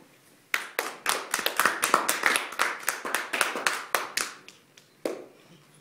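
A small audience applauding, individual claps easy to pick out, starting about half a second in and dying away after about four seconds, with one last clap near the end.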